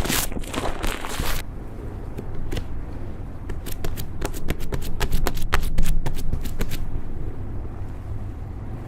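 Slime being squeezed and worked by hand: dense crackling at first, then a run of sharp clicking pops, several a second, that thins out toward the end.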